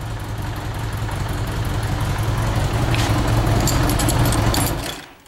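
Honda Gold Wing GL1100 flat-four engine idling steadily, warm with the choke off. Near the end it is switched off and the sound cuts off suddenly.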